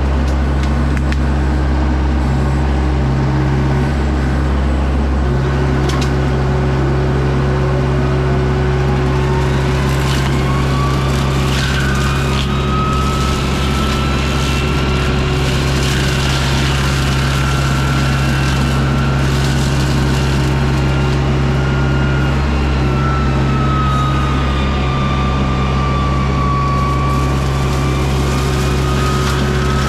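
John Deere 60G compact excavator's diesel engine running steadily under load, with a Baumalight brush mulcher head running on it. A whine climbs over a few seconds, starting about a quarter of the way in, then holds and wavers to the end, with crackles and snaps through the middle as brush is chewed up.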